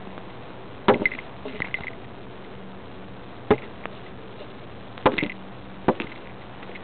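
Collar-mounted camera on a moving cat knocking and rubbing against its mount and the surroundings: four sharp knocks with a few smaller clicks and rustles, over a faint steady low hum.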